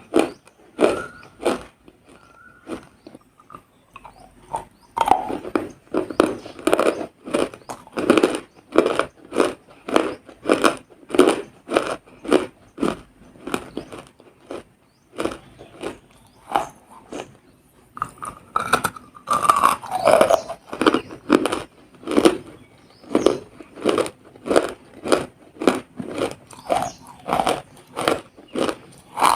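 Close-up biting and chewing of a crunchy, wet food: sharp crunches about two a second, with short pauses between mouthfuls.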